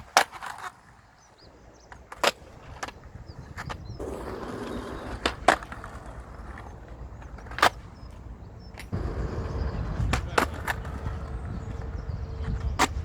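Wind buffeting the microphone, a low rumble that grows stronger about two-thirds of the way in, with a handful of sharp, irregular knocks or clacks.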